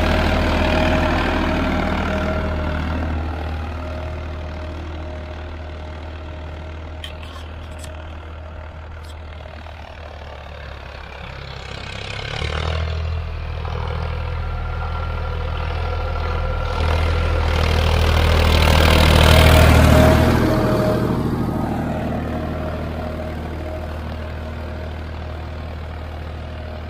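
Farmtrac 60 PowerMaxx tractor's three-cylinder diesel engine running under load while pulling an 18-disc harrow. It fades as the tractor works away, then grows louder as it comes back, loudest about twenty seconds in, and fades again near the end.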